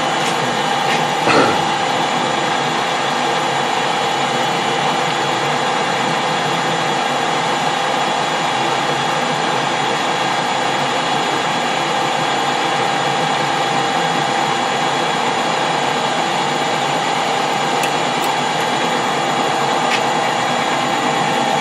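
Metal lathe running under power feed while the tool takes a turning cut on a metal bar: a steady machine hum with a high gear whine. A brief knock about a second and a half in.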